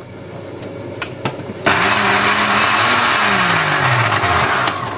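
Countertop blender motor running for about three seconds, starting a little under two seconds in, its pitch falling as it slows down just before it stops.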